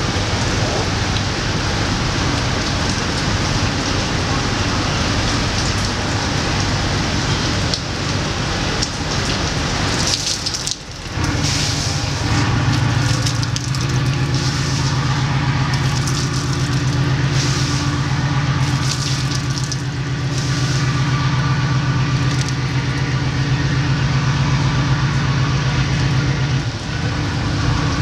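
Steady rain hissing on the boat's deck and canopy. From a little under halfway through, a boat engine's steady low hum joins it and then fades out near the end.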